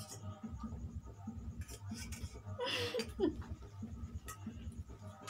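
A person laughs briefly about halfway through, over faint clicks and a low, evenly pulsing hum.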